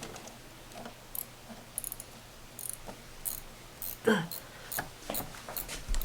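Hand tools working on a bolt under the hood: scattered, irregular light metallic clicks and clinks, with one louder brief sound about four seconds in.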